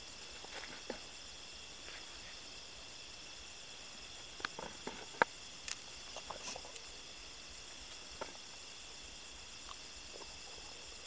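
Steady high-pitched chorus of night insects, with scattered small clicks and taps from hands handling a bamboo stick and string, the sharpest about five seconds in.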